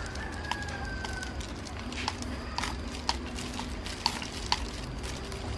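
Metal spoon clinking and scraping against a glass bowl in scattered light taps as chopped scallions are spooned out, over a low steady hum.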